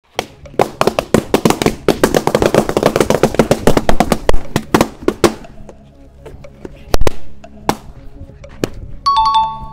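Balloons bursting in a rapid string of sharp pops, many a second, for about five seconds, then a few single pops spaced a second or so apart. Near the end comes a short, steady two-note tone.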